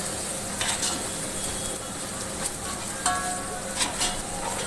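Onions, green chillies and spices frying in ghee in a steel pot, sizzling steadily as a spoon stirs them. The spoon scrapes several times and gives a short metallic clink against the pot about three seconds in.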